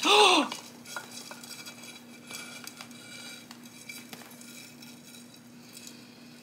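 A short voiced exclamation, then quiet gritty scraping and crumbling as a stick is pushed through a terracotta pot's drainage hole and dry potting mix with pumice breaks away from a root-bound cactus root ball sliding out of the pot.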